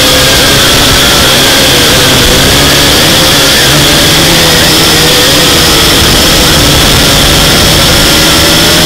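A drone's electric motors and propellers whining loudly, heard up close from the craft itself: several tones that waver slightly in pitch as the throttle shifts, over a rushing noise of propeller wash.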